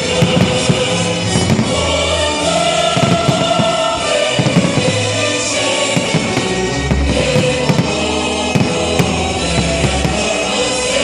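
Choral music with held voices and a low bass line, with frequent firework bangs sounding over it.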